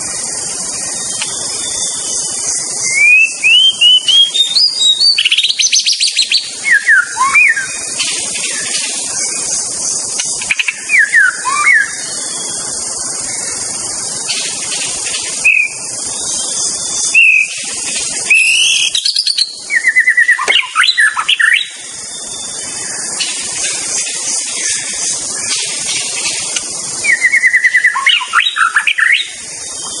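White-rumped shama (murai batu) singing in several separate phrases of clear whistles, rising series of notes, quick trills and sharp down-slurred notes, over a steady high hiss.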